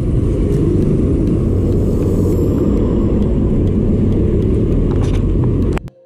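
Steady low rumble of wind and road noise while riding a mountain bike on a paved street, cutting off suddenly near the end.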